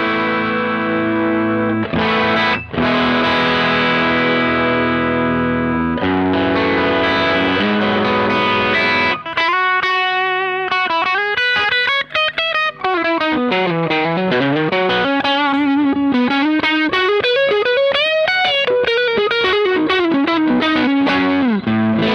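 Electric guitar played through a Fender Hot Rod Deluxe IV tube combo amp on its overdrive channel, with the gain turned down a little from maximum. Distorted chords ring out first, then from about nine seconds in a single-note lead line with bends and vibrato, and it settles on a held chord near the end.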